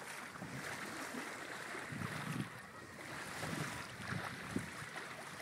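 Water washing and splashing along the hull of a Pearson 26 sailboat under sail in calm seas, in irregular soft surges, with wind on the microphone.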